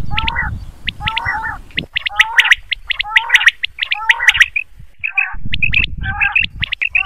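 Quail calling over and over in quick phrases of short notes, about two phrases a second, with low rumbling underneath at the start and again about five seconds in. This is a recorded quail call of the kind played as a lure for quail hunting.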